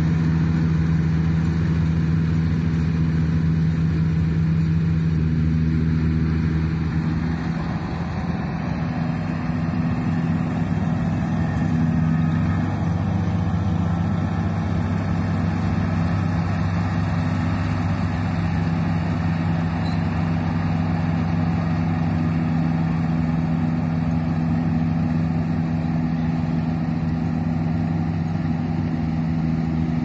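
Engine of a small rice combine harvester running steadily while it harvests.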